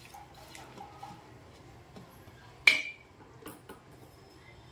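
Quiet handling of raw prawns being cleaned, with one sharp clink of a utensil against a dish a little under three seconds in.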